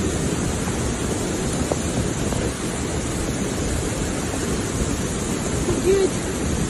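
Muddy flash-flood torrent (a mudflow) rushing past in a steady, unbroken rush of water.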